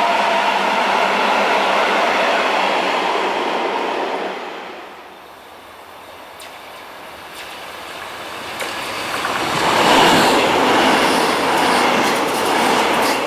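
An electric freight train with hopper wagons runs past with a steady rumble that fades about four seconds in. Then an electric commuter train approaches, grows louder and passes close by, loudest about ten seconds in, its wheels clicking over the rail joints near the end.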